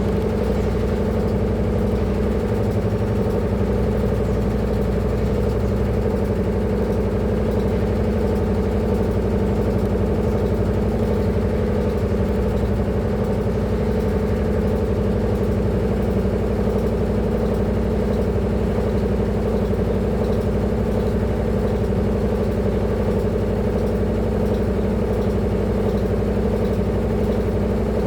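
Washing machine on its spin cycle, the drum spinning at high speed with a loud, steady hum that holds constant throughout.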